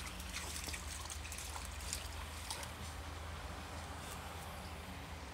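Shallow woodland brook trickling steadily, with a few small splashes and clicks in the first few seconds.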